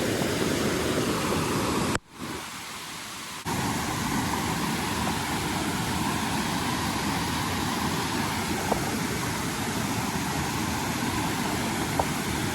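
Steady rushing of a waterfall and creek; it drops out suddenly about two seconds in, comes back quieter for a moment, then returns at full level.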